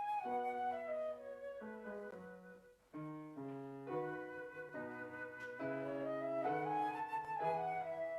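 Slow, quiet organ music: sustained chords held without fading under a melody that rises and falls, with a brief break about three seconds in.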